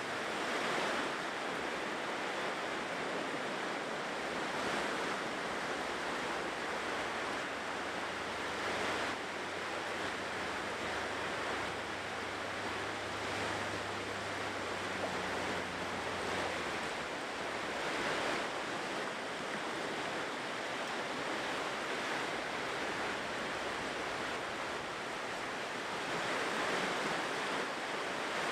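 Ocean waves washing on a seashore: a steady rush of surf that swells and eases every few seconds.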